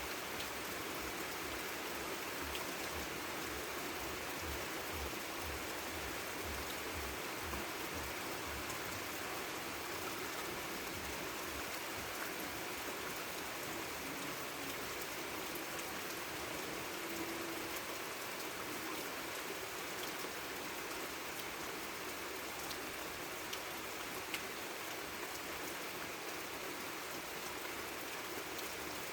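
Light rain falling steadily: an even hiss of drops with scattered faint ticks.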